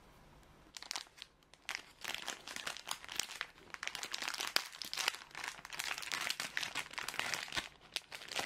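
Thin clear plastic film wrapper of a packaged kimbap roll crinkling as it is pulled and peeled open by hand, starting about a second in.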